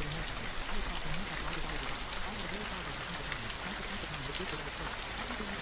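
Steady gentle rain with scattered drop ticks, over a faint voice speaking affirmations mixed low beneath it.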